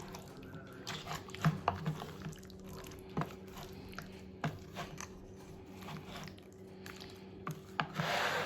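Scattered light clicks and taps of soaked wooden bamboo skewers being picked up and handled on the counter, with a short rustle near the end, over a steady low hum.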